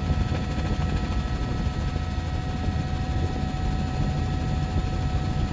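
Helicopter rotor and engine noise: a steady low, rapidly pulsing thrum with a constant high whine above it.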